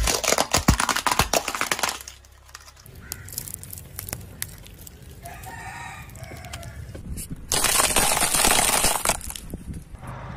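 Objects being crushed under a car tyre: dense crunching and cracking for the first two seconds, then a low engine hum. A short pitched squealing sound comes in the middle, and a second loud burst of crackling crunch follows about 7.5 seconds in.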